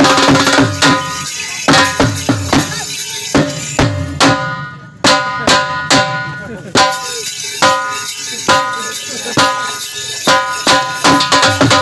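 Dhol drum beaten under a been reed pipe holding steady tones: Saraiki jhumar dance music. The drumming is fast and dense at the start and end and thins to sparse single strokes in the middle, with a brief drop in level about four to five seconds in.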